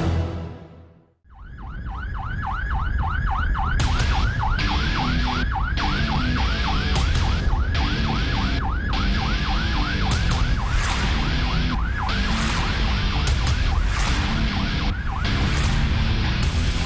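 Rescue truck's siren yelping in a rapid rise and fall, several times a second, over low engine and road rumble; the siren stops about two seconds before the end. Music fades out in the first second.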